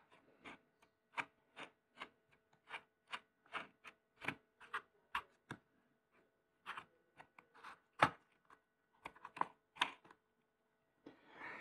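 Plastic side cover being fitted back onto an Ozito 18 V pole pruner's chain sprocket and its red knob turned down by hand: a run of light clicks and small plastic knocks, with a short pause in the middle and one louder click about eight seconds in.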